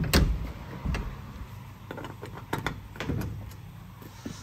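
Sheet-steel enclosure doors of a Kaeser ASD 50 T screw compressor being swung shut and latched. There is a series of knocks and clatters, the loudest right at the start, then several more over the next three seconds. The compressor itself is not running.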